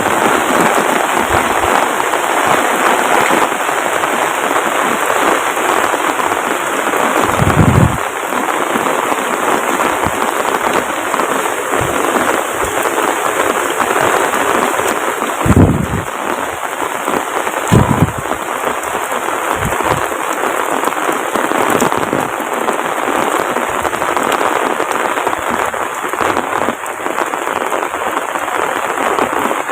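Heavy rain pouring steadily, a dense hiss of drops hitting surfaces, with a few loud low thumps standing out, the strongest about 8, 16 and 18 seconds in.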